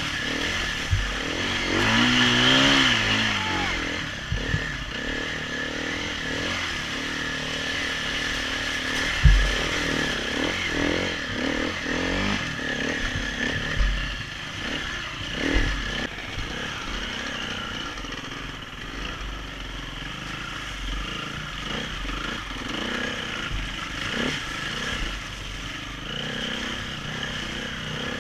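KTM 350 four-stroke single-cylinder enduro motorcycle ridden hard on a muddy trail, the engine revving up and down with the throttle. Knocks and clatter from the bike over the bumps come through, the loudest a hard thump about nine seconds in.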